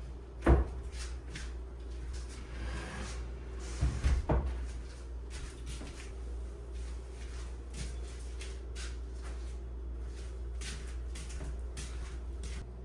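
Household handling sounds: a sharp knock about half a second in, a quick cluster of knocks around four seconds, and light clicks and taps throughout, over a steady low hum.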